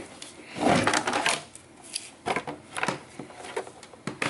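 Plastic bottom cover of an Asus GL502VT laptop being handled over the chassis: a scraping rub about a second in, then scattered light plastic clicks and taps.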